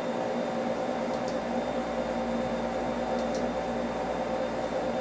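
Steady mechanical hum of a fan-type motor running, with a few even tones in it, and faint mouse clicks about a second in and again past three seconds.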